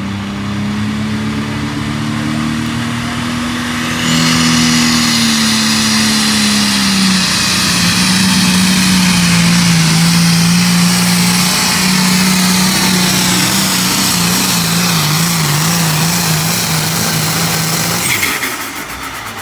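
Modified red International Harvester pulling tractor's engine at full throttle dragging a weight-transfer sled down the track, its pitch sagging slowly as the load builds. A loud high hiss joins the engine about four seconds in. Near the end the pitch wavers, then the engine drops off as the pull ends.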